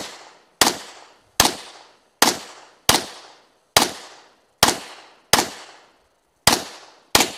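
Semi-automatic pistol fired in a steady string, about ten sharp shots roughly one every three-quarters of a second, each followed by a short echo dying away.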